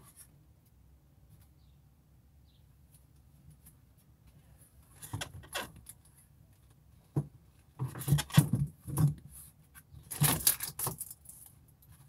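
Things being handled close to the microphone: rustling, scraping and light clattering in irregular bunches, after about five seconds of near quiet.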